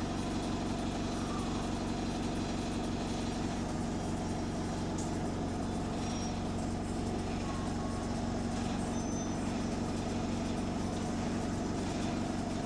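Bus diesel engine running steadily at a constant pitch, heard from inside the bus; the uploader says this bus has an exhaust leak.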